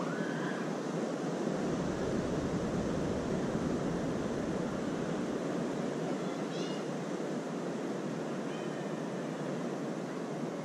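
Steady wash of ocean surf on a sandy beach, with wind rumbling on the microphone from about a second and a half in. A few faint, short high calls come through about six seconds in and again near nine seconds.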